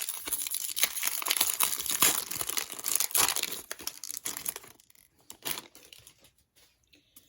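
A 1999-2000 Fleer Tradition basketball card pack being torn open, its wrapper crinkling and tearing for about four and a half seconds. After that there are only a couple of brief rustles.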